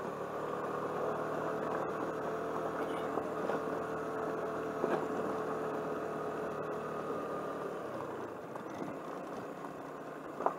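Suzuki Burgman motor scooter running steadily while riding up a gravel road, its engine and drive giving a steady whine; it eases off a little near the end.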